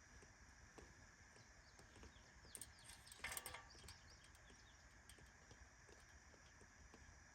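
Near silence: faint outdoor background, with a brief faint pitched call and a few light clicks about three seconds in.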